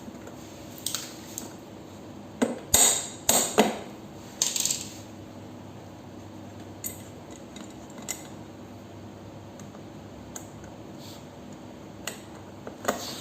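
Metal parts and a tool handled during assembly of a toy ride-on bike, clinking and knocking: a cluster of loud knocks and clinks between about two and a half and five seconds in, then a few scattered light clicks.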